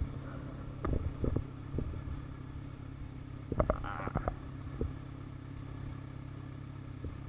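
Kawasaki Z1000R's inline-four engine, with an aftermarket Vmax exhaust, idling steadily with a low hum. A few short clicks and knocks come about a second in and again around four seconds in.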